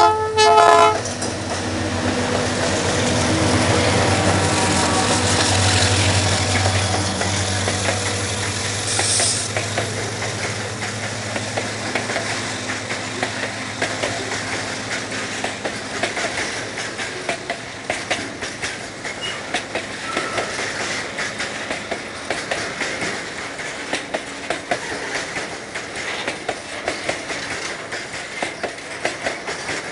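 A diesel freight locomotive's horn sounds briefly at the start. The lead GE C30-7 and EMD SD40T-2 diesel locomotives then pass with a deep engine rumble that fades after about ten seconds. A long string of tank cars follows, its wheels clicking rhythmically over the rail joints.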